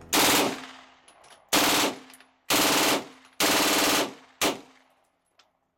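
An MP5K submachine gun firing five short bursts of automatic fire, each under about half a second, the last one the briefest.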